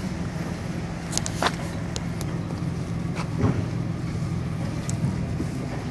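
A motor vehicle engine idling with a steady low hum, with a few sharp clicks and scuffs over it.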